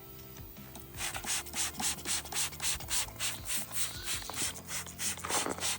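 Rhythmic hand scrubbing, worked back and forth at about four strokes a second, starting about a second in.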